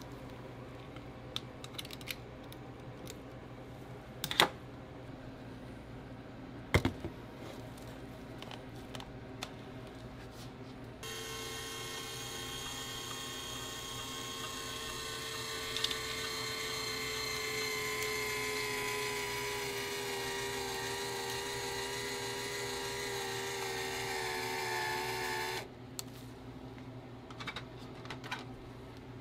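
Ice cream noodle press motor whining steadily as it pushes vanilla ice cream out through its die as noodles, its pitch sinking slowly; it starts about a third of the way in and cuts off suddenly. Before it, two sharp knocks.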